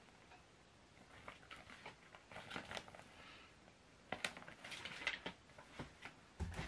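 Faint rustling and handling of a thin comic book's paper pages as it is held up and opened, with scattered soft clicks and taps of items being moved.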